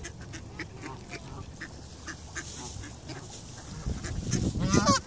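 A flock of ducks and Canada geese calling, with scattered short quacks and honks. About four seconds in, one louder wavering call rises over a burst of wind rumbling on the microphone.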